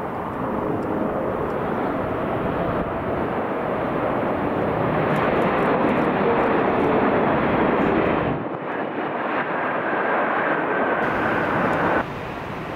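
Jet engines of a Boeing 777-300ER with GE90 engines passing low on landing, a loud rushing noise with a faint steady whine that grows louder toward the middle. The sound changes abruptly three times as the recording cuts between passes.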